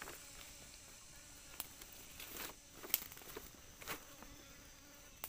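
Steady high-pitched drone of insects calling in the background, with a few short clicks and rustles, the sharpest about three seconds in.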